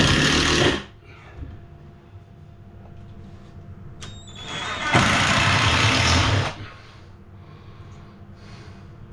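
Power drill driving screws into timber: two bursts of the motor, about a second long at the start and a longer one of nearly two seconds about five seconds in.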